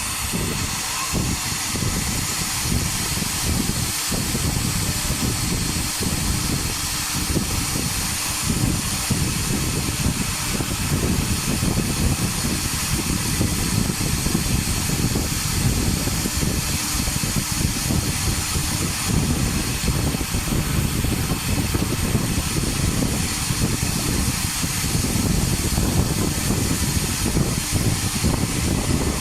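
CNC router's air-cooled spindle running at speed, a steady high whine over the hiss of its cooling fan, with the bit carving MDF as an uneven, fluctuating lower noise.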